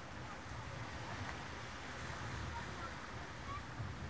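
Wind buffeting the camcorder microphone in an uneven low rumble over a steady wash of sea surf, with a few faint short chirps here and there.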